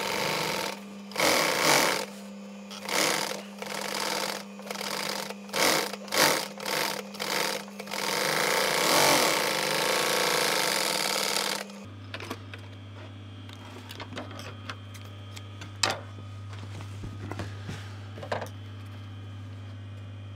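Industrial sewing machine stitching cushion cloth in a series of short start-stop bursts, then one longer run of about four seconds that stops about twelve seconds in. After that only a steady low hum and a few faint clicks remain.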